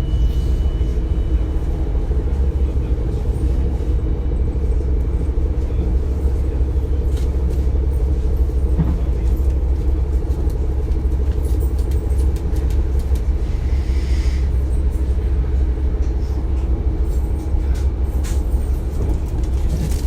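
Interior running noise of a DB Class 425 electric multiple unit underway: a steady low rumble of wheels on rail with a constant drone from the running gear.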